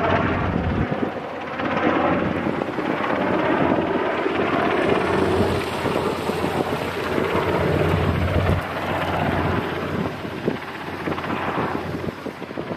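SH-60K helicopter flying over the harbour, a steady rotor and turbine noise that eases off somewhat in the last few seconds, with some wind on the microphone.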